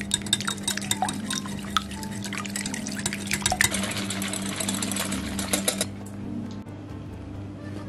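Wire whisk beating an egg in a glass bowl: rapid clinking and scraping of the wires against the glass, which stops about six seconds in.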